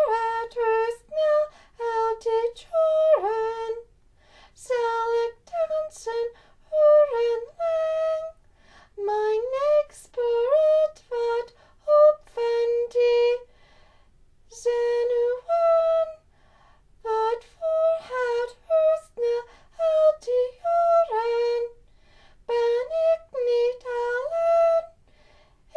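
A high female voice singing a song in Dutch with no accompaniment, in short held phrases broken by brief pauses.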